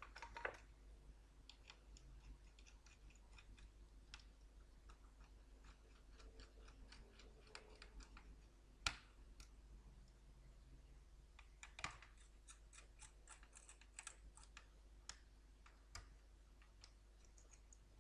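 Faint, scattered clicks and light taps from hands and a small tool handling parts on an opened all-in-one computer's motherboard. The sharpest click comes about halfway through, and a quick run of small ticks follows a few seconds later.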